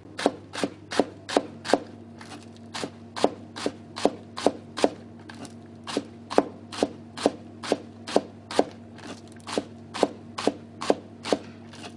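Kitchen knife thinly slicing a green onion on a plastic cutting board: even knocks of the blade on the board, about two and a half a second, with two brief pauses near the middle.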